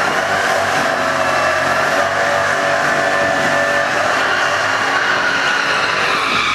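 Drag-racing car engines, a supercharged Ford Mustang and a Dodge Charger, running loud and steady at the strip.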